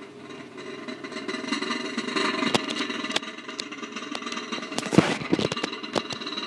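Microwave oven running with a steady hum while a halved tomato under a glass pops and crackles like popcorn popping. The pops come thicker over the first couple of seconds, with the sharpest, loudest crack about five seconds in.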